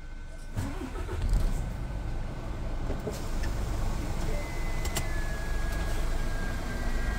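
Scania R450 lorry's diesel engine running at idle, a steady low rumble heard from inside the cab, with a couple of faint clicks.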